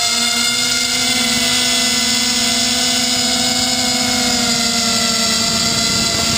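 FPV250 quadcopter's 1806 2400Kv brushless motors and propellers whining steadily in flight, heard close from the camera on the frame, the pitch drifting slightly.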